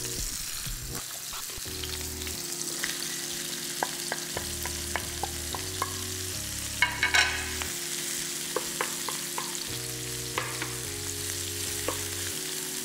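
Sausage and onions sizzling in hot olive oil in a frying pan, with scattered clicks and scrapes of a utensil stirring the pan. There is a louder scrape about seven seconds in. Soft background music with sustained notes plays underneath.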